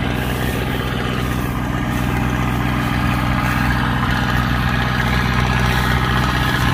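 Belarus 805 tractor's diesel engine running steadily as it pulls a loaded trailer, growing slightly louder as it comes closer.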